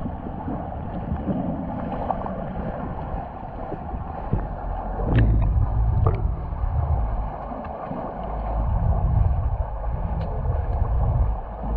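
Muffled underwater noise in a swimming pool: a low rush of water that swells and fades every two to three seconds, with a few sharp clicks.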